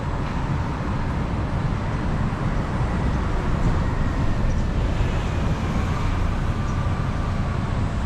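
Steady road-traffic noise: cars and other vehicles passing, a continuous rumble of engines and tyres.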